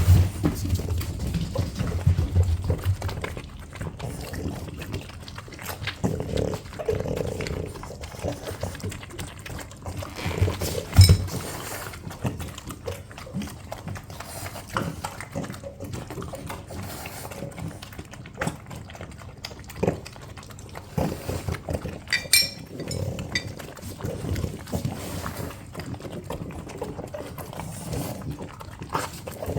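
French bulldogs eating, snuffling and chewing, with wet licking and small irregular clicks, and a louder knock about eleven seconds in.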